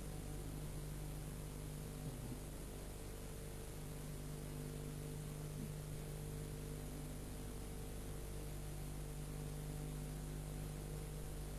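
Steady electrical hum with a constant hiss underneath, the background noise of an old analogue recording, with no voice.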